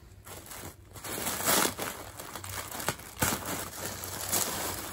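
Paper wrapping crinkling and rustling as hands unwrap a package, in uneven bursts, the loudest about a second and a half in, with a sharp click near the three-second mark.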